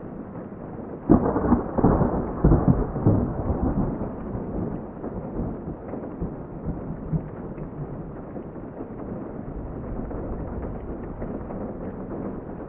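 Steady rain. About a second in, a sudden loud crackling burst breaks in and dies away over the next three seconds before the even rain resumes.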